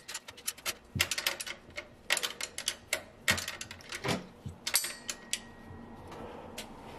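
Irregular light metallic clicks and taps of a spanner working the nut on the alternator's main wire terminal post, the clicks thinning out after about five seconds.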